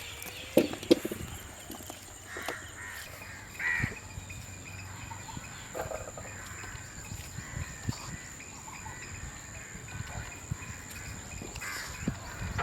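Crows cawing now and then over outdoor ambience, with small scattered clicks and knocks.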